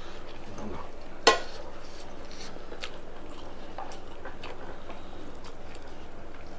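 Tableware clinking: one sharp, ringing clink of a utensil against a dish about a second in, then a few faint clicks and taps of dishes being handled.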